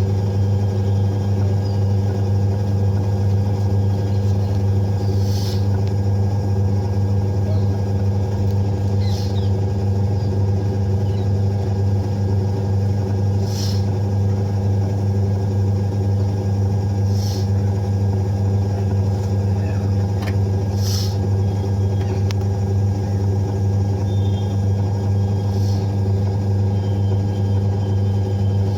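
Samsung top-load washing machine's motor running with a steady, even electrical hum. Several brief, faint high chirps come and go over it.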